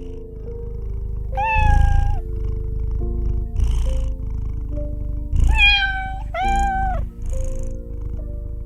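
A domestic cat meowing three times over a continuous low purr. Each meow is about half a second to a second long and drops in pitch before levelling off. The second and third come close together.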